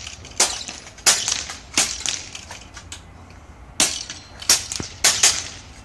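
Airgun Technology Vulcan PCP air rifle firing in rapid succession: sharp reports about two-thirds of a second apart, a group of three, a pause of about two seconds, then another quick group of three or four.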